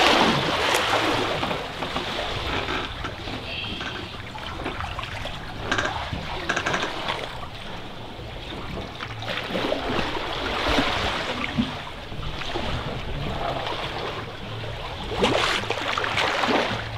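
Water rushing and splashing along the bow of a catamaran under way, swelling louder a few times.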